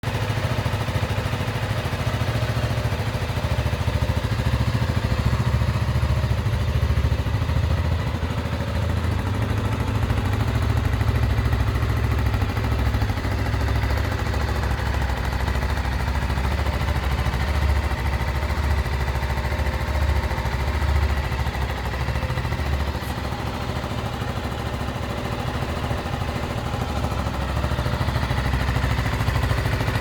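Zontes 310V motorcycle's single-cylinder engine idling steadily.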